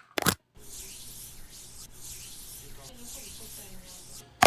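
A steady hiss lasting about three and a half seconds, of the kind a spray or rubbing makes, ending in a sharp click.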